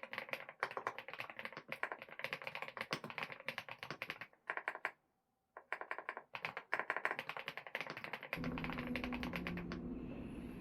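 Fast, continuous typing on a computer keyboard: a dense run of key clicks. It breaks off abruptly for about a second just before the middle, then resumes. Near the end a steady low hum with held tones comes in under the fading typing.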